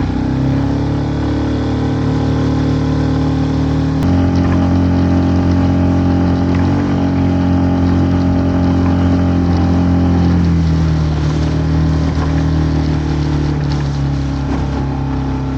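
Tohatsu 6 hp outboard motor running hard, pushing a loaded 3.3 m inflatable boat up onto the plane. The engine note shifts abruptly about four seconds in, then holds steady and eases slightly about ten seconds in.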